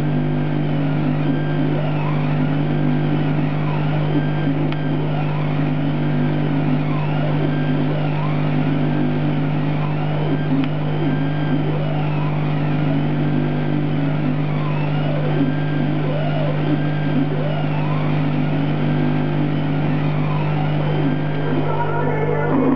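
CO2 laser engraver-cutter's stepper motors whining as the head traces circles, the pitch rising and falling in repeated arcs about every one to two seconds, over a steady low hum.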